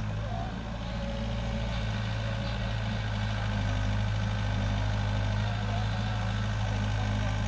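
Steady low hum of diesel engines idling: a Thaco Forland dump truck and a Doosan DX55 excavator running side by side during loading.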